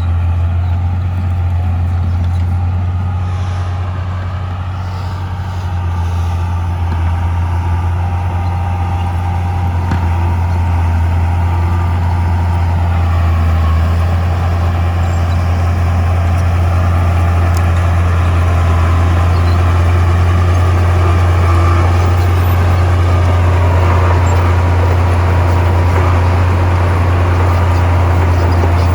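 Heavy diesel engine of earthmoving machinery running steadily under load, a deep continuous drone that eases briefly and then builds a little.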